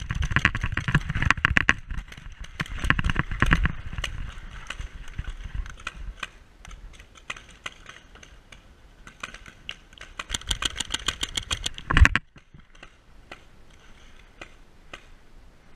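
Running footsteps crunching on gravel, with gear and the paintball marker rattling, for about the first four seconds, then quieter shuffling. A run of rapid clicks about ten seconds in ends in one sharp knock about twelve seconds in.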